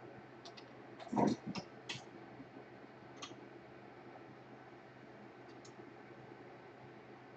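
A few small clicks and taps of tools and small parts handled on a repair bench, bunched together with one louder knock about a second in, then a single click a little later, over a faint steady hiss.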